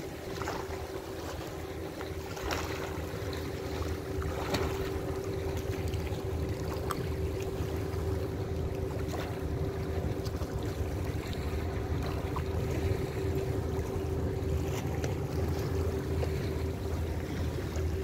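Distant diesel engine of a pusher tug driving a barge convoy, a steady hum, with wind rumbling on the microphone and a few light clicks.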